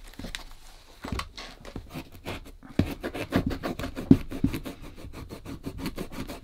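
Cobbler's file rasping across a leather shoe sole in short back-and-forth strokes, roughing up the surface so glue will grip. A few separate strokes at first, then quick, steady strokes, several a second, from about three seconds in.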